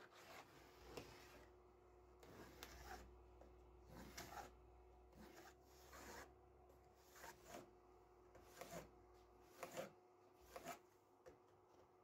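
Faint scratching of a pencil drawing lines on wooden boards, with a plastic square rubbing and sliding over the wood, in short irregular strokes.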